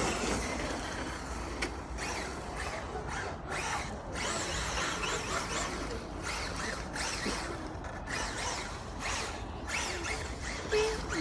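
Traxxas Unlimited Desert Racer RC truck's brushless electric motor whining, its pitch rising and falling again and again as the throttle is worked, with several brief drop-outs.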